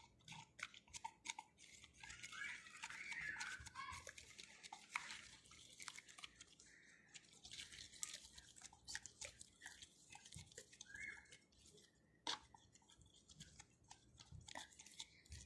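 A wooden popsicle stick stirring white glue mixed with paint and glitter: faint sticky squelching and irregular light clicks of the stick against the container.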